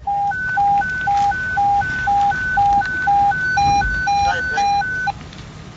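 Electronic hi-lo alert tone, a low and a high pitch alternating about twice a second, of the kind sounded before a fire dispatch. A second, higher-pitched beeping joins briefly past halfway, and the tone cuts off about five seconds in.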